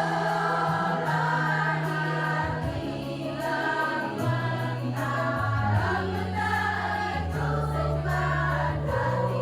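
A choir singing over an accompaniment that holds steady bass notes, changing every second or two.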